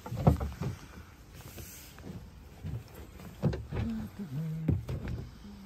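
Knocks and thumps of people moving about a sailboat's cockpit and companionway. A sharp thump comes just after the start and more knocks come about halfway through. A few short low tones, like creaks, follow near the end.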